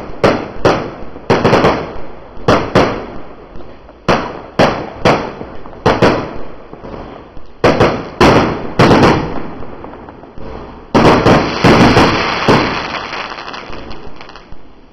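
Low-noise 1.4G consumer fireworks bursting in a rapid string of sharp pops, about two a second, with a dense cluster of overlapping bursts about eleven seconds in.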